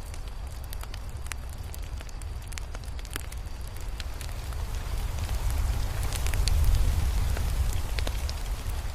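Fire crackling: scattered sharp pops and snaps over a low rumble of flame, which swells briefly about six to seven seconds in.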